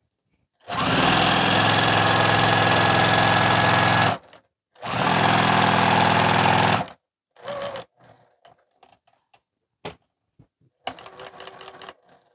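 Juki TL-2010Q domestic sewing machine with a walking foot, stitching a quilting line at speed in two runs: about three and a half seconds, a brief stop, then about two more seconds. After that come faint rustles and light knocks as the quilt is shifted by hand.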